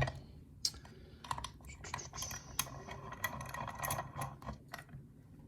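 A lock and small metal tools being handled: irregular light clicks and taps, with a stretch of rapid small scraping and clicking in the middle.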